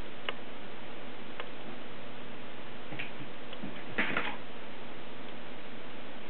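Kittens at play: a few scattered light clicks and taps, with a short flurry of them about four seconds in, over a steady hiss.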